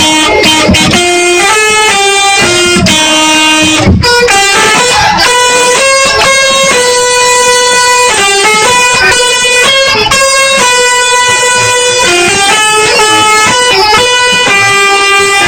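Telolet multi-tone bus horn playing a tune: loud held notes that jump abruptly from one pitch to the next.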